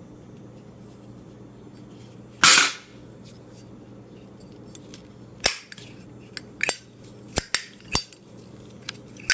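Zippo windproof lighter being handled: one louder rasping snap about two and a half seconds in, then a string of about six sharp metallic clicks from the hinged lid flipping open and snapping shut.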